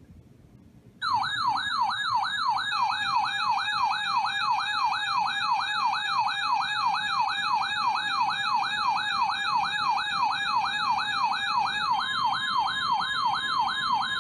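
Electronic yelp siren sweeping rapidly up and down, about three times a second, as an alert before a weather warning broadcast; a steady alert tone joins underneath near the end.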